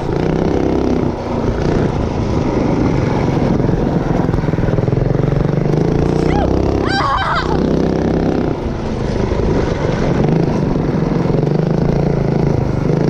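Motovox mini bike's small four-stroke engine running under riding, its revs rising and falling. A brief high, wavering squeal cuts in about seven seconds in.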